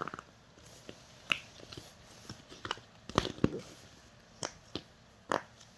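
Silicone bubbles of a push-pop fidget toy being pressed through, making a series of short pops and clicks at an irregular pace, about eight, the loudest near the middle.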